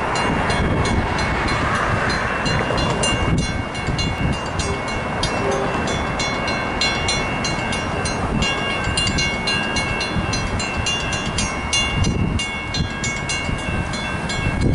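Railroad crossing warning bells ringing in a fast, even run of strikes while the crossing gates come down, warning of an approaching train. The ringing stops near the end, once the gates are fully down.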